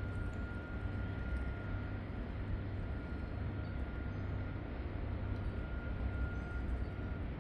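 City street ambience: a steady low rumble of traffic, with a thin high-pitched tone that sounds for a couple of seconds at a time, breaking off and resuming twice.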